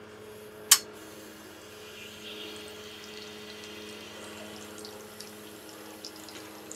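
Water hissing faintly as it runs from a freshly pierced supply line into a reverse osmosis system's filter housings, filling them, starting about two seconds in. A single sharp click comes just before it, over a steady low hum.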